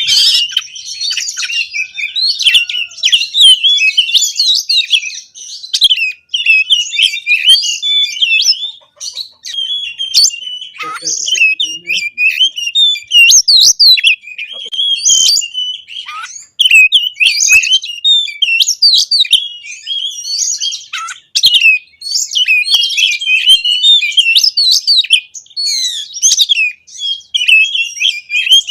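Oriental magpie-robin (kacer) singing hard: a loud, rapid, nearly continuous run of varied whistles and chattering notes, broken only by short pauses every few seconds.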